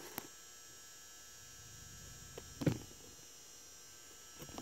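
Faint steady electrical hum with a few light clicks and one louder knock a little past the middle.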